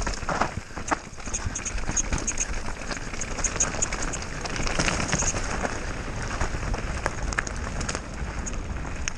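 Mountain bike descending a dirt forest trail: tyres running over earth and dry leaves, with dense rattling and clicking from the bike over the bumps.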